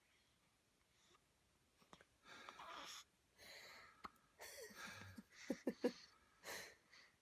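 A one-week-old baby hiccuping: short soft hics with breathy sounds between, and later on a quick run of three louder, squeaky hics close together.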